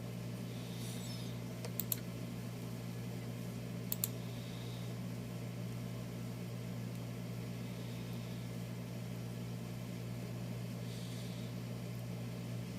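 A steady low hum, with two brief pairs of sharp clicks about two and four seconds in.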